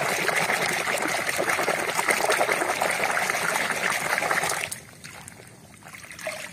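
A hand sloshing and scrubbing in a plastic basin of muddy, soapy water: steady splashing that stops about three-quarters of the way through, followed by faint water sounds as the toy comes out dripping.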